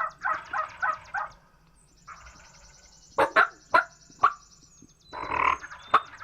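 Wild turkey gobbles: the rattling end of one gobble at the start, then two more gobbles near the end. A small bird trills thinly and high in the background, and four sharp clicks sound in the middle.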